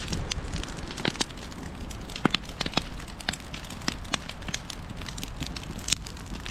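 Burning wood posts crackling, with irregular sharp pops and snaps over a low steady rumble.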